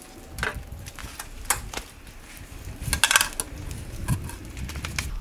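Sheet-metal fascia trim being folded at its notched 45° corners and handled against a wooden sawhorse: a series of light metallic clanks and rattles, with a quick cluster of them about three seconds in.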